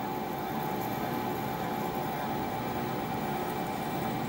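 Vertical milling machine's spindle running steadily in low gear, turning a reamer that is fed down through a sprocket's centre hole to finish it to 12 mm. A constant mid-pitched machine hum.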